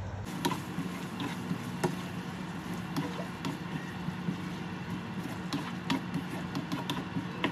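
Plastic spatula stirring thick liver and potato curry in a nonstick pan: irregular light taps and scrapes against the pan, over a steady low hum.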